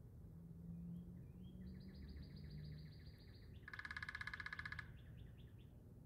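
Woodpeckers: a few high notes, then a fast series of repeated notes, then a louder rapid rattle about four seconds in that breaks off into a few separate notes.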